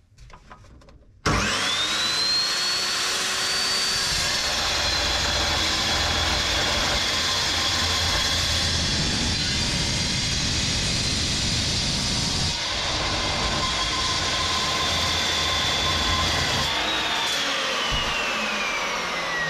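Evolution metal-cutting chop saw starting with a rising whine about a second in, then cutting through steel box section with a loud, steady whine. Near the end the motor is switched off and the blade winds down with a falling whine.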